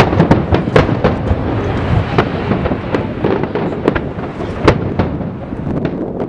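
Aerial fireworks bursting in quick succession: many sharp bangs, some overlapping, over a continuous rolling rumble, with a few louder reports standing out.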